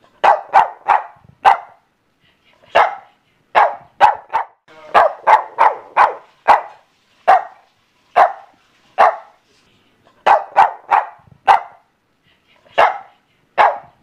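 Boston Terrier barking: short barks, some single and some in quick runs of three to five, with pauses of about a second between the groups.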